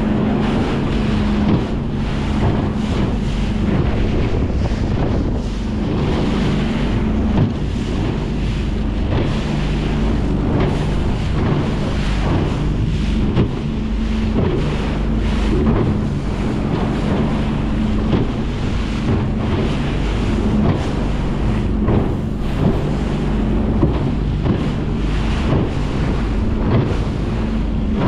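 Outboard motor of a small rigid inflatable boat running steadily while pushing through choppy ocean swell, with strong wind buffeting the microphone and scattered short thuds as the hull hits the waves.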